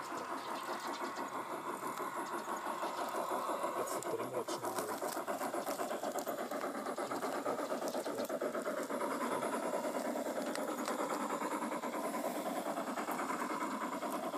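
USA Trains New York Central Hudson G-scale model steam locomotive running along the track on its first run with a newly installed decoder, giving a fast, even chuffing rhythm.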